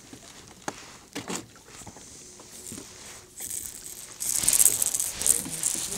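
Handling noise in a small fishing boat: a few light knocks and clicks, then about a second and a half of loud rustling hiss near the end.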